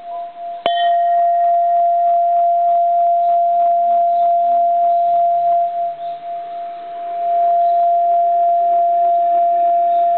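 Bronze Japanese Buddhist temple bell struck with a very light tap about a second in, then ringing on with one long, pure tone over fainter higher overtones. The loudness dips and swells slowly as the tone sustains.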